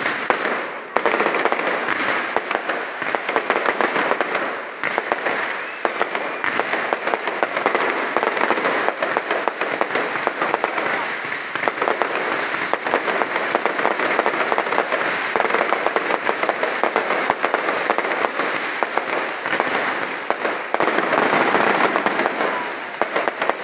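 A fireworks display: a rapid, unbroken string of crackling bangs and pops from many small bursts, keeping up without a pause.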